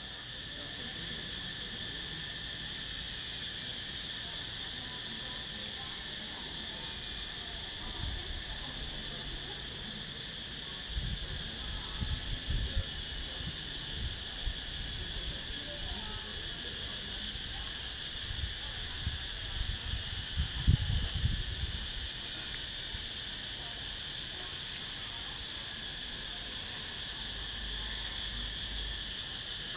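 Insects chirring steadily at a high pitch, an unbroken trill that holds on throughout. Irregular low bumps and rumbles come through in the middle stretch, loudest about two-thirds of the way in.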